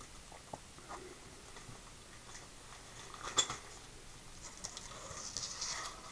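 Faint handling noises of a plastic G.I. Joe action figure being picked up and set aside: a few small clicks, one sharper click about three and a half seconds in, then light crackly rustling near the end.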